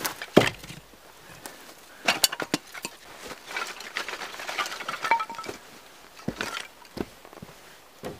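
Split firewood knocking as pieces are set onto a stack, the loudest knock just after the start, then a run of crackling and clattering from thin split kindling sticks being handled, with a few more wooden knocks near the end.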